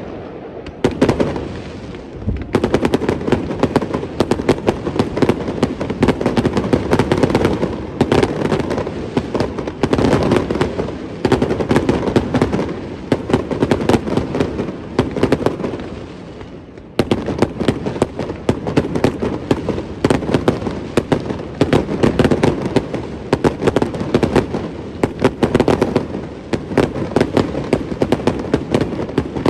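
Fireworks display: a dense barrage of shells bursting in rapid succession, crackling and booming without a break. It eases briefly a little over halfway through, then picks up again.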